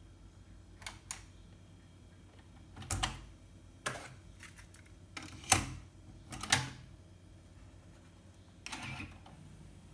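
Yamaha KX-530 cassette deck being handled and operated, giving a series of separate mechanical clicks and clunks at irregular intervals. Two light clicks come about a second in, then heavier clunks, the loudest two around the middle, and a softer, longer clatter near the end.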